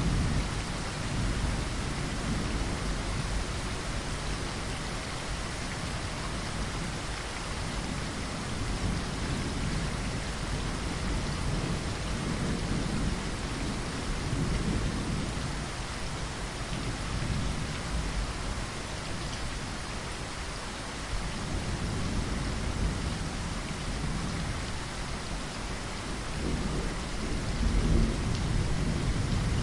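Steady rain pattering against a window, with low rolling rumbles of thunder swelling underneath, heaviest near the end.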